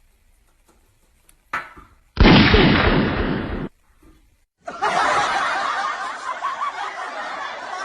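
A loud boom lasting about a second and a half, then about three seconds of laughter that cuts off abruptly.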